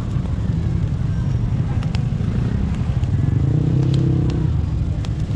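Steady low rumble of street traffic, with a motor vehicle's engine standing out for a second or so in the middle, and a few sharp clicks.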